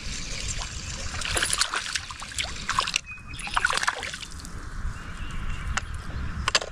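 Water splashing in short bursts as a small hooked bass thrashes at the surface of a pond while being reeled toward a kayak.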